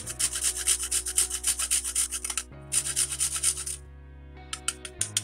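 Whole nutmeg being grated over a pot of vegetable purée: quick rasping strokes, about seven a second, with a brief pause partway through. The grating stops about four seconds in, and a few light ticks follow near the end.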